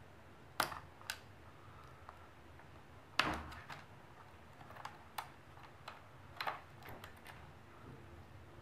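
Irregular small plastic and metal clicks and taps from fingers working inside a laptop's underside: the wireless card's two antenna leads being unclipped and the card pulled from its slot. There are about seven clicks, the loudest a little over three seconds in.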